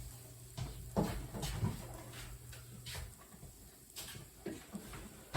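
Light clicks and knocks of cooking utensils handling a pan, a few scattered taps about half a second to a second apart, over a faint low hum that stops about three seconds in.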